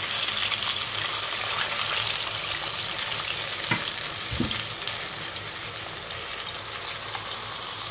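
Battered pakoras deep-frying in a pan of hot oil: a steady, dense sizzle and crackle of bubbling oil, with a couple of brief knocks near the middle.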